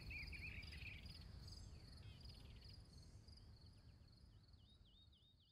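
Faint nature ambience: crickets chirping in a steady pulsing trill, with a bird's short swooping chirps, the whole fading out steadily toward the end.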